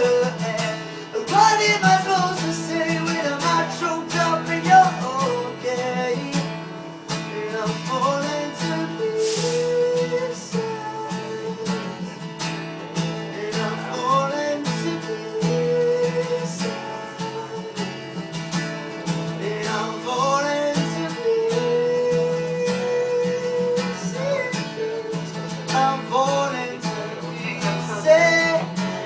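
A voice singing long held and sliding notes over a strummed acoustic guitar.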